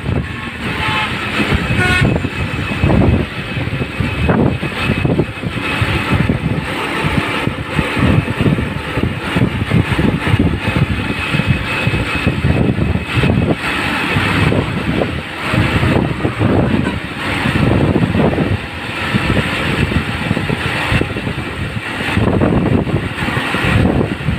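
Wind buffeting and rushing over the microphone of a moving bike, with cars and trucks passing on the road. A brief vehicle horn toot sounds about a second or two in.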